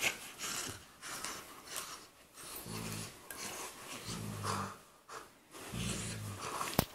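Golden retriever and Labrador puppy play-fighting: huffing, snorting breaths with about three short, low play growls, and a sharp click near the end.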